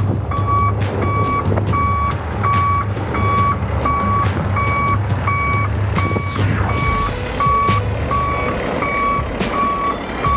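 A flatbed tow truck's reversing alarm beeping steadily, about two and a half beeps a second, over the low running of the truck's engine.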